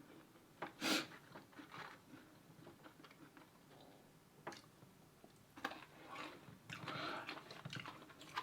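Faint eating sounds: scattered soft clicks and rustles, with a brief louder rustle about a second in and a longer soft rustle near the end.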